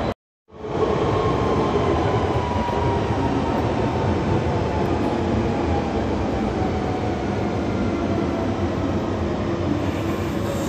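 A London Underground Central line 1992 stock train running in a tunnel, heard from inside the carriage: a steady rumble and rail noise with a motor whine that slowly falls in pitch as the train slows. The sound drops out briefly just after the start.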